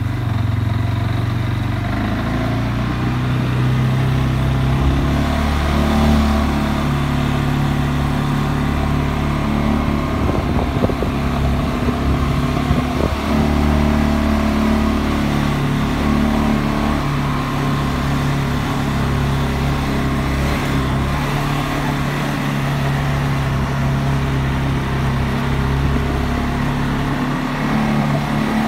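CFMOTO CFORCE 600 ATV's single-cylinder, liquid-cooled four-valve engine running at low riding speed, its pitch rising and falling a little with the throttle. A few short knocks come near the middle.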